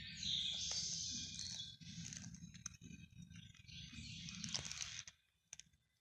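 Cat chewing and crunching a small bird: a run of clicks and crackles that stops suddenly about five seconds in.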